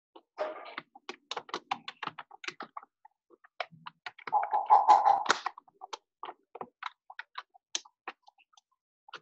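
Computer keyboard typing and clicking heard over a video call's open microphone: irregular keystrokes throughout, with a louder, longer noise lasting about a second near the middle.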